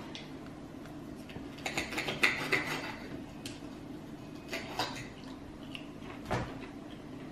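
Knife and fork scraping and clinking against a plate while cutting a breaded cutlet: a busy run of scrapes and a ringing clink about two seconds in, then a few single clicks of cutlery later on.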